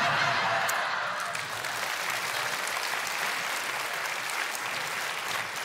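Studio audience applauding, loudest at the start and easing off slightly.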